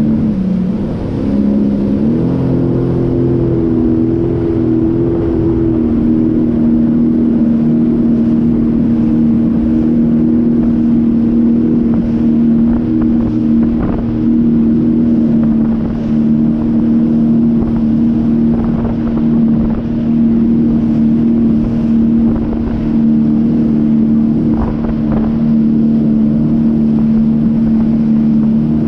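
Sea-Doo personal watercraft engine running at a steady cruising pitch. The pitch sags about a second in and comes back up by about two seconds, as the throttle is eased and reopened. Wind buffets the microphone and there are a few short thumps.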